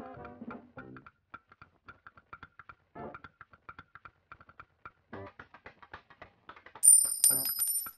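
Background music with sparse plucked-string notes. Near the end a loud, high ringing sound effect comes in with a few quick strikes.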